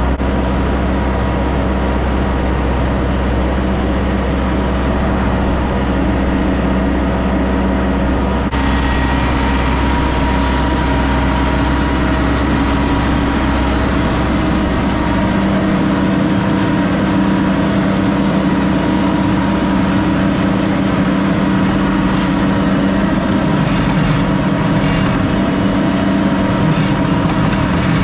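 Tractor engine running steadily under load, pulling a PTO-driven manure spreader. About eight seconds in, a broad hiss joins the engine sound, and a few light clicks come near the end.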